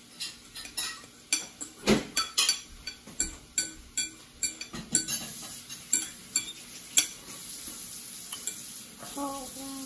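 A metal fork clinks and scrapes against a bowl over and over as a child digs into pasta, in quick irregular strikes for about seven seconds. After that a steady hiss is left, and near the end there is a brief voiced hum.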